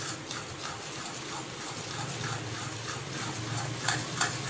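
Plastic spatula stirring and scraping a thick, cooking burfi mixture of gram flour, sugar, coconut and ghee in an aluminium kadai, in quick repeated strokes. It is stirred without pause to keep it from sticking to the bottom.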